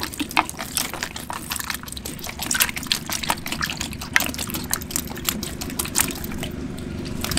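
Water trickling and splashing, with many small irregular splashes and drips that thin out near the end.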